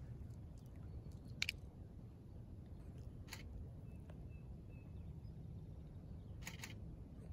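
Faint outdoor ambience: a steady low rumble with a few short soft clicks, the loudest about one and a half seconds in and a quick pair near the end, and faint short high chirps in the middle.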